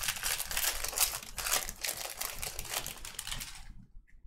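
Trading card packs and cards being handled: a dense run of crinkling and quick clicks for about four seconds, thinning out near the end.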